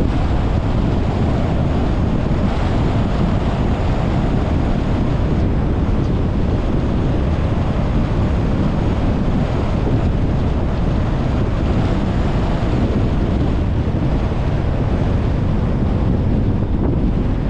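Steady wind rush and road noise from a car driving along, with wind buffeting the microphone as a constant low rumble.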